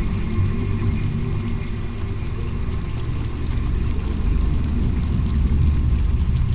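Steady, deep, muffled rumble of a running-water sound effect, with faint steady tones over it.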